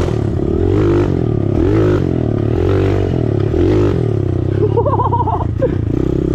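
Mini dirt bike's small engine running under way on a dirt track, its revs rising and falling repeatedly as the throttle is worked.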